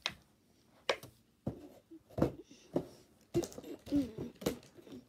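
Scattered light clicks and knocks from handling a plastic action figure and its clear plastic packaging tray, with a few short murmured vocal sounds in the second half.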